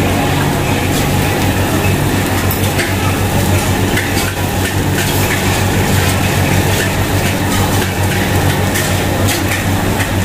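Steady, loud machine hum, like a fan or motor running at a cooking stall, with scattered light clicks and clatter over it.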